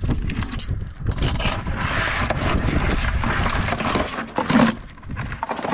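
Irregular scraping and clattering of live blue crabs being lifted and moved with metal crab tongs in a plastic cooler.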